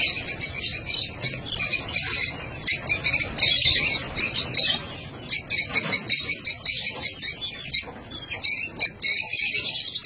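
A flock of lovebirds chirping and chattering in an aviary, many rapid, overlapping high calls with no pause.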